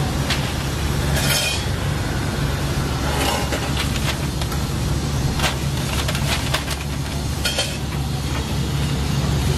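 Steady low rumble of background traffic and kitchen noise, with scattered sharp clicks and clinks of metal tongs and a pancake press on a hotteok griddle.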